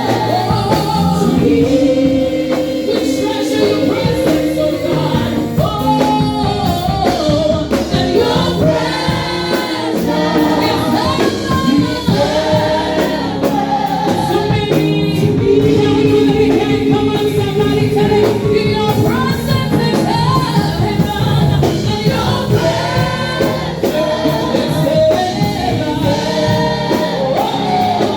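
Gospel praise team and congregation singing a worship song with live band accompaniment, voices holding and sliding between long notes.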